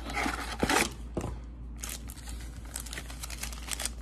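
Foil-wrapped 2021-22 Upper Deck MVP Hockey card packs crinkling as a stack of them is handled, a run of crisp crackles and small clicks.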